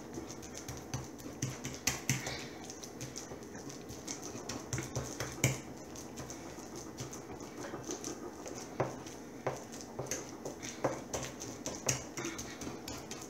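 A fork mashing ripe banana on a ceramic plate: irregular wet mashing with many light clicks and taps of the tines against the plate, a few of them sharper.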